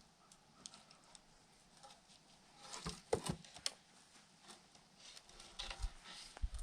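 Faint scattered cracks and crackles of wood splitting as a froe is levered into a log, coming in two flurries, about three and six seconds in.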